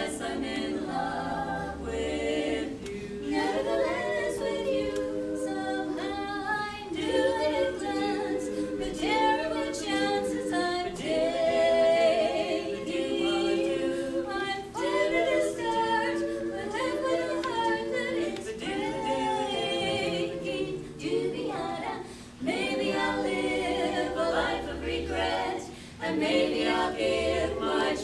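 Women's barbershop quartet singing a cappella in four-part harmony, in phrases with brief pauses between.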